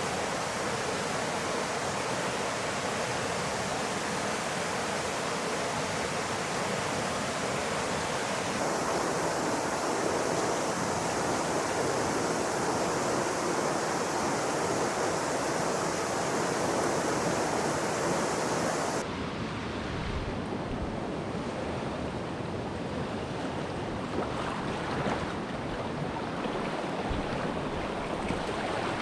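Rushing water of a swollen mountain river, a steady noise that changes abruptly twice: about a third of the way in, and again about two-thirds in.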